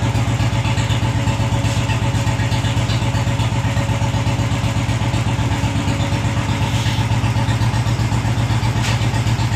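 Royal Enfield Bullet's single-cylinder engine idling steadily, with an even, rapid low beat.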